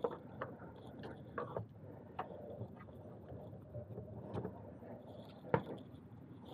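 Light clicks and knocks of intake-kit parts being handled: rubber adapter inserts and the intake tube. One sharper knock comes about five and a half seconds in.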